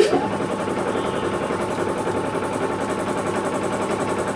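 A motor-driven machine starts abruptly and runs steadily with a fast, even rattle, then cuts off suddenly near the end.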